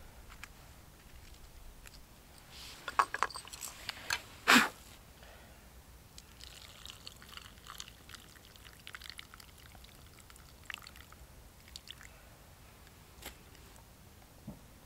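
Several sharp clicks and one loud clack a few seconds in, then water pouring from a pot into a carved wooden cup for a few seconds.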